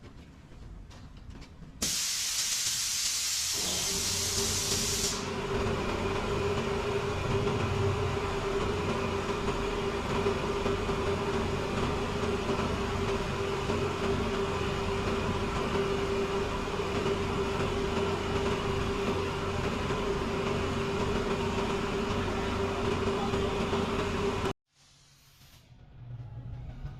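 Compressed-air power tool: a loud hiss of air for about three seconds, then the tool running at a steady high pitch for about twenty seconds before cutting off suddenly.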